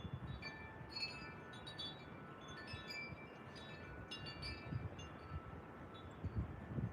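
Faint wind chimes ringing, several clear metallic tones struck at random moments and left to ring. A few soft low thuds sound beneath them.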